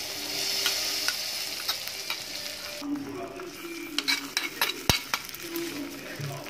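Hot ghee with fried cashews tipped into moong dal payasam, sizzling loudly for about three seconds, then a spoon clicking and knocking against the dish several times.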